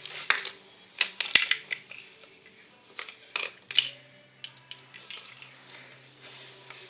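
Miniature toy cutlery (little knives, forks and spoons) being handled and set out: small sharp clicks and taps in two clusters, with quieter rustling handling between them.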